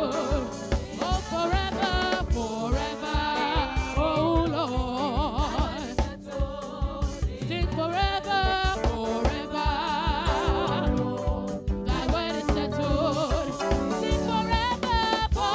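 Gospel praise singing: a group of women singing into microphones, the lead voice wavering on held notes, over live instrumental backing with a steady beat.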